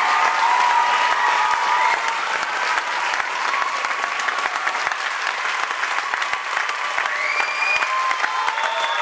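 Audience applauding a stage show's finale: dense, steady clapping. A held sung note fades out about two seconds in.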